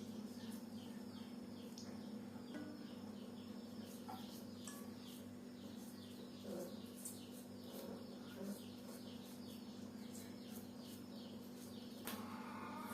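Faint garden ambience: a small creature repeats short, high, falling chirps, about two a second, over a steady low hum.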